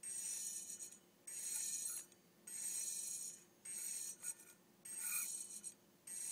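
A crashed hard-drive read/write head of a Hitachi Deskstar 7K250 dragging over a damaged platter, making high-pitched squeaks in six short bursts about once a second. The squeaking is the sign of a head crash: the head has lost its air cushion and is scraping the platter surface.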